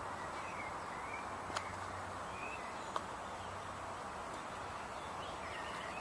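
Steady outdoor background hiss with faint, brief bird chirps now and then, and two small sharp clicks.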